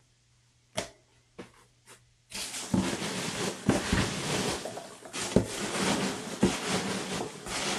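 Foam packing peanuts rustling and knocking together as hands dig through them in a cardboard box, after a few light taps. The rustling starts about two seconds in and continues densely to the end.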